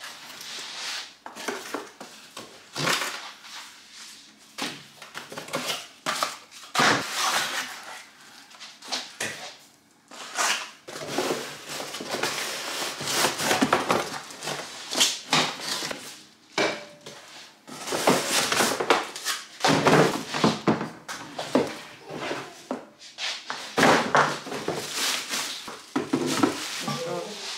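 Unpacking a blender: cardboard box flaps opened and inner cardboard pieces handled, parts lifted out with light knocks, and plastic wrapping rustling. Irregular rustles and clunks, with brief pauses between them.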